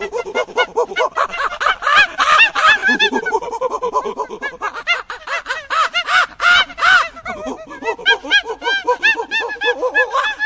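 A flock of birds calling at once, many short harsh calls overlapping without a break.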